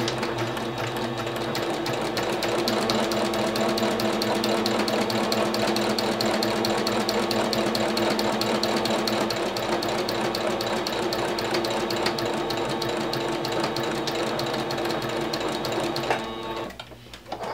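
Singer electric sewing machine running steadily, sewing a straight stitch through quilt fabric with a rapid, even needle rhythm; it stops near the end.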